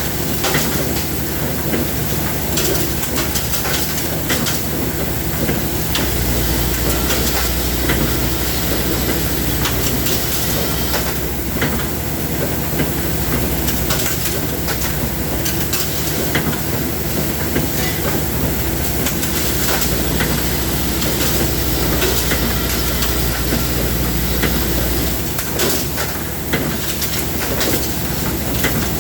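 Machinery running steadily, with a constant noisy hiss and rattling clicks. A low hum comes in about six seconds in and stops near the end.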